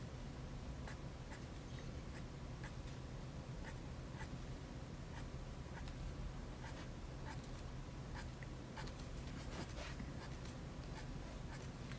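Faint pen writing on paper: irregular short scratches and ticks, several a second, over a steady low hum of room noise.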